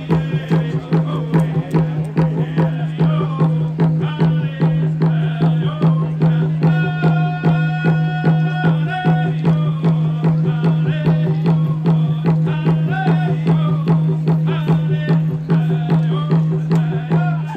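Powwow drum group performing: many evenly spaced, steady beats on a big drum under high-pitched group singing.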